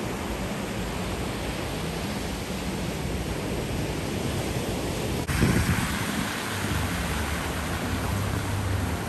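Steady rushing noise of storm surf and wind, with an abrupt shift about five seconds in to a brighter rush over a low rumble.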